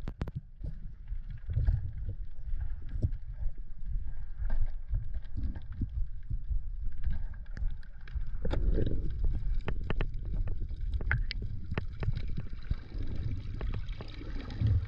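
Underwater sound picked up by a diver's action camera: a low rumble of moving water, with many sharp clicks and crackles scattered throughout and a louder rush of water about eight seconds in.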